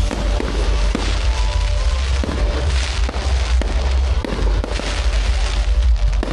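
Fireworks going off: a dense run of bangs and crackles over a continuous low rumble.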